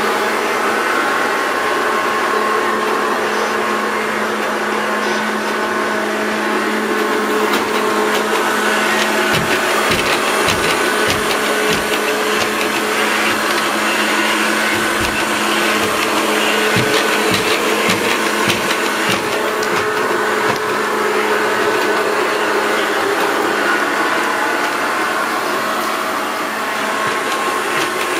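SO-ZI robot vacuum cleaner running: a steady motor and brush whine with constant tones. A series of low thumps comes through the middle stretch.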